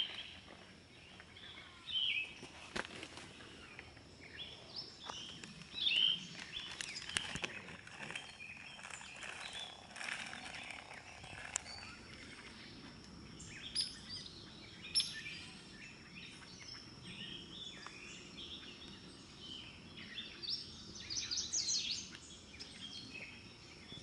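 Wild birds chirping and calling in woodland at dawn, many short chirps scattered throughout and busiest near the start and again near the end, over a thin steady high tone.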